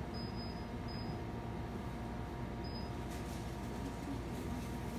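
Steady low hum of room tone, with no distinct events.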